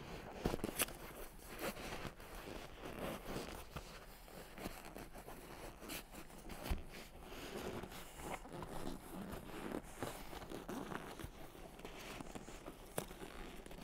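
A tight seat cover rustling and rubbing as it is stretched and worked over a car headrest, with scattered small clicks and a soft knock about halfway through.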